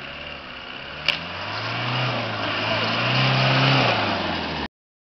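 Land Rover Discovery engine revving under load as the 4x4 drives through deep mud, the note swelling and easing twice, with a sharp click about a second in. The sound cuts off suddenly just before the end.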